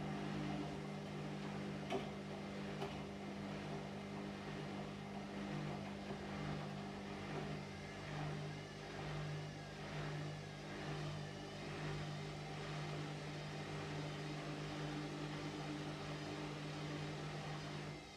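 Washing machine running: a steady motor hum with a noisy wash of water and laundry moving in the drum, swelling and easing every second or so.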